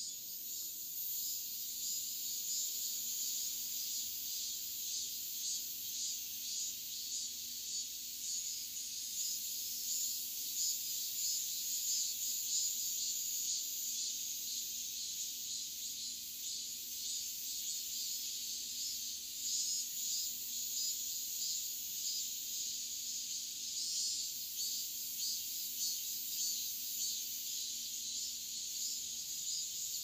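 Cicadas singing in a dense, steady chorus of high-pitched buzzing.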